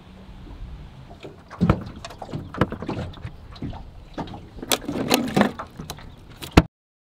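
Hard plastic cooler being opened and the plastic water bottles inside clattering and knocking together as they are rummaged through, in a rapid irregular run of sharp knocks that cuts off suddenly near the end.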